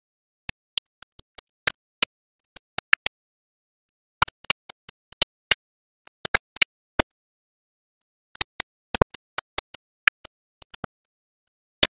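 Automatic pin insertion machine at work, its insertion head pressing pins into circuit boards: sharp clicks in quick irregular clusters, several a second, with short gaps between clusters.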